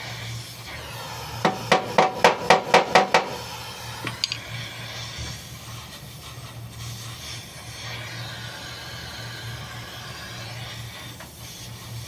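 Oxy-fuel gas welding torch hissing steadily as it welds a car's chassis rail. About a second and a half in comes a quick run of about eight sharp metallic taps, roughly five a second, then two lighter clicks a little later.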